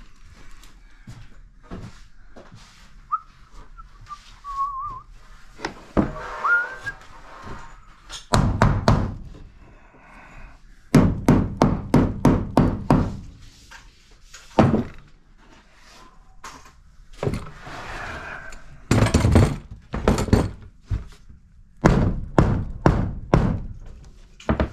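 Hammer blows on wood framing, in several bursts of quick strikes with single knocks between, the longest a run of about eight blows. A brief high wavering whistle sounds a few seconds in.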